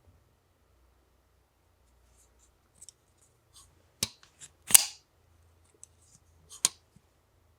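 Civivi RS71 folding knife's action clicking as the blade is worked: a few faint ticks, then three sharp metallic snaps, the second the loudest.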